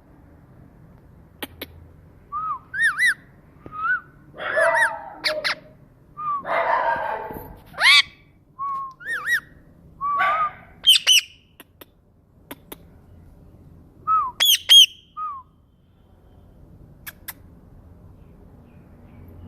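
Pet parrot calling in short, separate squawks and whistled notes, some gliding up or down in pitch, with a few rougher, harsher calls in the middle and quiet gaps between.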